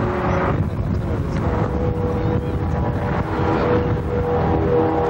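Wind rumbling on the microphone, with a steady hum that comes in about a second and a half in and shifts slightly in pitch near the end.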